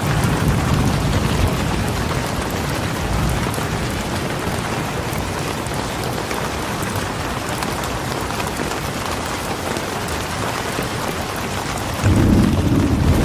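Steady rain falling, an even hiss. About twelve seconds in, a low rumble of thunder comes in louder underneath it.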